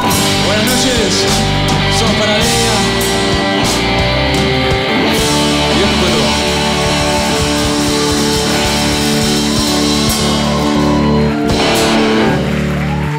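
Live rock band playing guitars, bass and drum kit, with cymbal crashes in the first few seconds. The band then rings out on a sustained chord that stops near the end.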